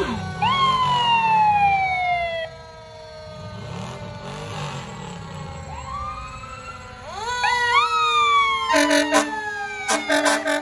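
Fire engine sirens sounding in whoops, each rising quickly then winding down slowly, once near the start and again about seven seconds in, followed near the end by a few short blasts of a fire truck's air horn.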